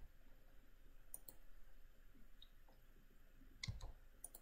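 A few faint clicks from a computer keyboard and mouse, with near silence between them: a pair of clicks about a second in and a small cluster near the end.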